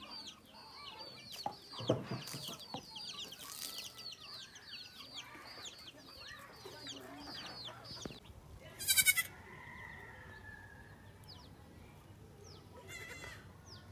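Chicks peep continuously, many short falling chirps a second, with a hen clucking about two seconds in. After that a baby goat bleats: one loud, wavering bleat around the middle and a fainter one near the end.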